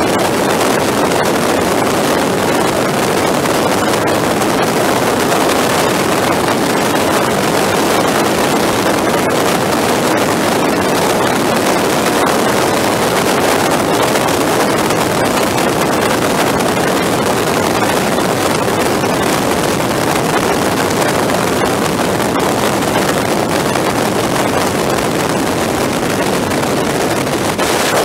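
Steady rush of wind over the microphone of a camera on a motorcycle moving at highway speed, mixed with the bike's engine and road noise, sped up to four times normal speed.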